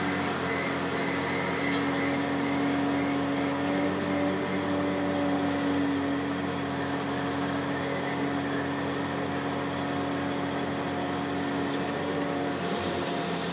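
John Deere 800C LC excavator's diesel engine and hydraulics running steadily under load, heard from inside the cab: a constant hum with a strong steady tone, its pitch shifting slightly near the end as the machine swings.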